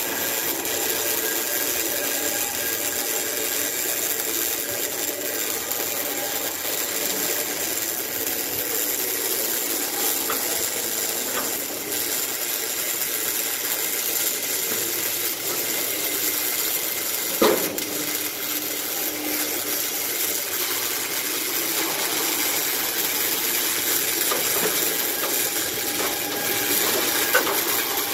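A welding arc hissing steadily during confined-space welding, with one sharp knock about two-thirds of the way through and a smaller one near the end.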